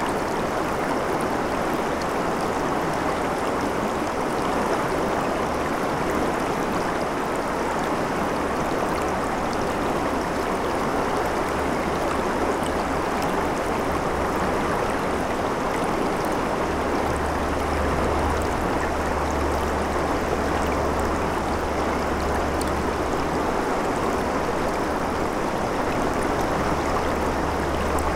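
A shallow, rocky river rushing over stones in riffles: a steady, unbroken rush of flowing water.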